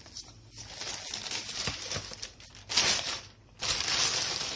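Plastic carrier bag rustling and crinkling as it is handled and wrapped around a pot, in loud bursts over the second half with a brief pause between them.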